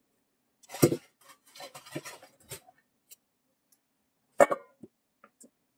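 Kitchen containers and utensils being handled and set down: a sharp knock, about a second and a half of clattering and rustling, then another sharp knock, with a few small clicks near the end.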